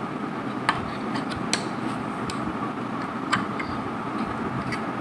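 Hard plastic Lego pieces clicking and tapping about half a dozen times, at irregular moments, as the hinged transparent roof panel of a Lego space station module is lifted open. A steady hiss runs underneath.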